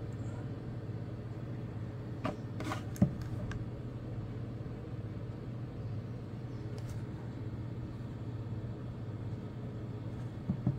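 A steady low hum in the background, with a few light handling clicks and one sharp knock about three seconds in as the smartphone is set down on the wooden table; a couple more small clicks come near the end.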